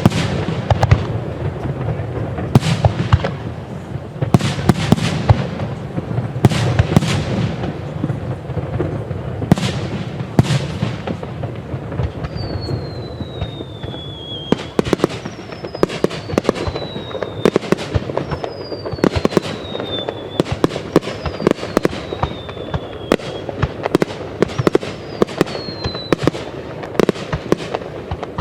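Large aerial fireworks display: a rapid run of shell bursts and crackling bangs. From about halfway through, a series of five high whistles each falls in pitch over about two seconds, among the bangs.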